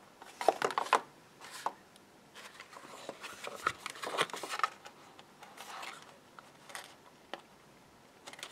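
Sheets of white card stock handled and folded by hand: scattered rustles, scrapes and light taps of card, loudest about half a second to a second in and again around the middle.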